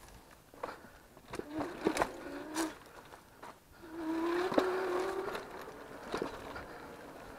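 An e-bike jolting over a rough, root-strewn sandy trail: irregular rattles and sharp knocks from the frame and bars, with brush scraping along the handlebars. A low electric-motor whine comes in twice, briefly about a second and a half in and longer from about four to five seconds in.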